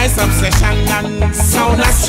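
Reggae music with a heavy, prominent bass line.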